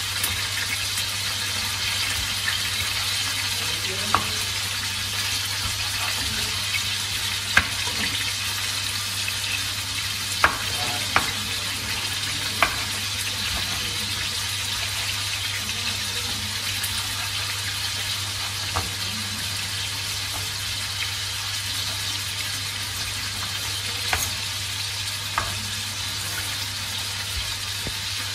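Kitchen knife striking a wooden cutting board while dicing tomatoes: about eight scattered sharp taps over a steady hiss and a low hum.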